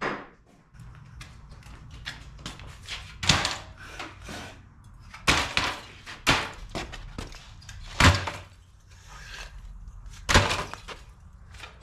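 Copper-aluminium AC radiator coils being dropped onto piles, about six loud metallic thunks a second or two apart.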